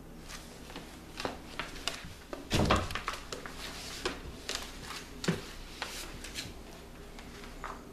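Scattered small clicks and rustles, with one heavier thump about two and a half seconds in: a puppy shifting around and settling on its fabric dog bed on a tiled floor.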